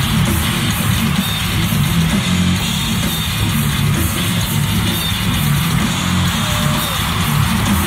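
Heavy metal music played loud: a drum kit pounding under distorted electric guitar, dense and unbroken throughout.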